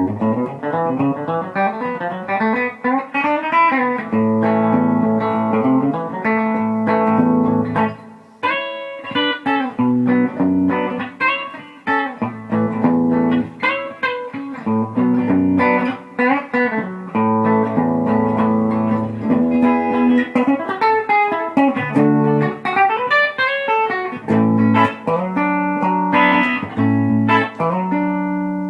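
Electric guitar (a Gibson ES-359) played through a Bearfoot Pale Green compressor with its controls cranked, into an amp with a 10-inch speaker: a run of picked single-note lines and chords with a little country squash, ending on a held chord that rings out.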